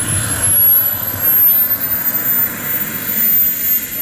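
Small K45 turbine in an Avanti model jet, running with a high whine over a rushing exhaust noise as the jet taxis. The whine rises in pitch about a second in, holds, then sags slightly near the end.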